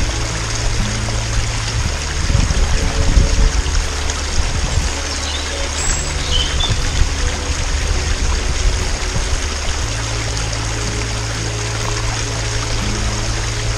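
Running water of a small stream trickling steadily, with background music of low held notes underneath.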